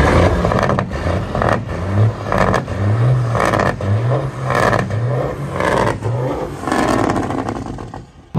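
Big-rig diesel engine of a custom semi truck revved again and again through its straight vertical exhaust stacks, each blip rising in pitch, with a rough clattering exhaust. The revving dies away shortly before the end.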